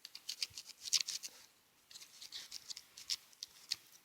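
SOG pocket knife blade sawing through a piece of string: a run of short, faint scraping strokes with a brief pause about one and a half seconds in.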